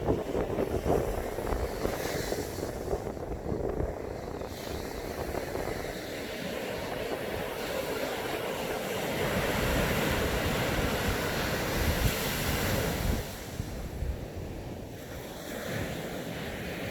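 Ocean surf breaking and washing on the beach, a continuous rush that swells to its loudest from about eight to thirteen seconds in and then falls back, with wind buffeting the smartphone's microphone.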